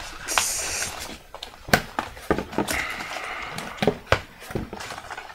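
Packaging being handled during an unboxing: rustling of packing material with scattered clicks and light knocks as items are moved in the box.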